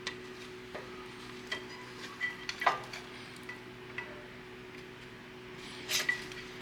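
Scattered light metallic clinks and taps of tools and brake parts being handled, some ringing briefly. The loudest comes just under three seconds in and a short cluster near the end, over a steady low hum.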